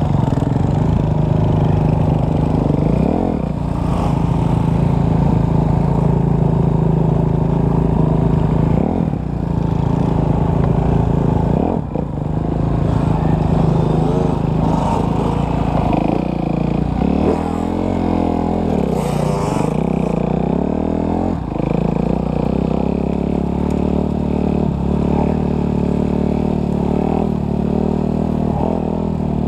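Enduro dirt bike engine running under way on a trail, its pitch rising and falling several times as the throttle is opened and closed.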